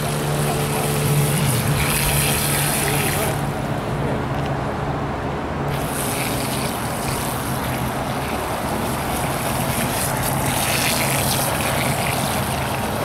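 Small electric radio-controlled speedboat running across choppy water, heard as a steady hum and hiss over water noise. The high hiss drops away for about two seconds a little over three seconds in.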